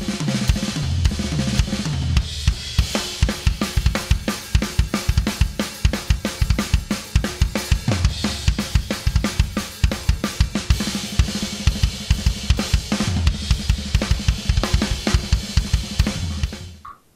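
Full drum kit played fast and dense: bass drum, toms and snare strokes under a wash of cymbals, with quick runs down the toms in the first couple of seconds. The playing fades out near the end.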